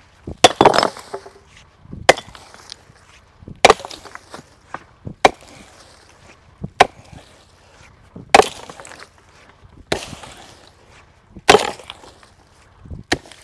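Repeated chopping blows into wood, evenly paced about every second and a half, nine strikes in all.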